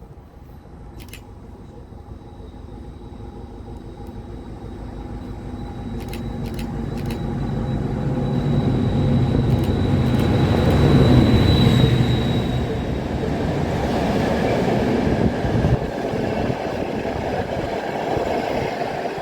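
Train approaching and running past: a low rail rumble that grows steadily louder to a peak about eleven seconds in and stays loud as the cars roll by, with a thin high-pitched squeal through the middle.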